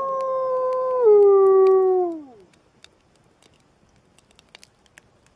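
A single wolf howl: one long call held at a steady pitch, dropping lower about a second in and trailing away at about two seconds. Faint scattered clicks follow.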